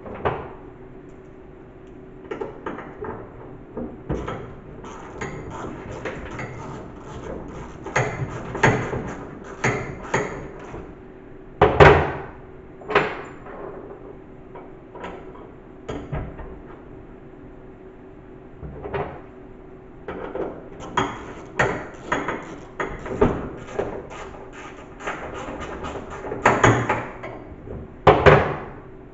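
Irregular knocks, taps and clatter of hands-on work fitting a car body's trunk lid and its hinges, with single sharp impacts about 12 and 28 seconds in, over a steady faint hum.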